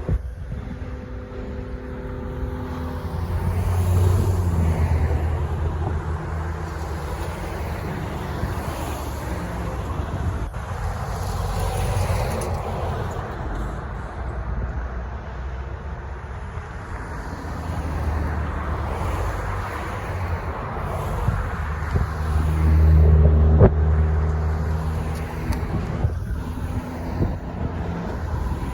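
Steady rumble of heavy vehicles passing at a railroad crossing. It swells about four seconds in and again near the end, with an engine note rising each time and one sharp click near the loudest swell.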